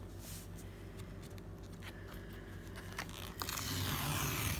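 Cardboard mailer being handled with a few faint clicks, then its perforated tear strip ripped open for about a second near the end.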